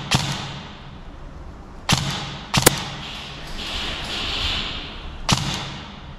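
Krytac airsoft electric assault rifle firing single shots, each a sharp snap: one near the start, one about two seconds in, a quick pair soon after and one more near the end. A steady hiss runs for about a second and a half a little past the middle.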